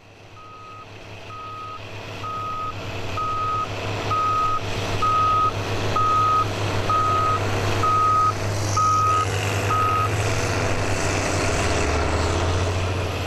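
Heavy landfill machine's reversing alarm beeping about once a second over its steady engine, fading in; the beeps stop about ten seconds in while the engine keeps running.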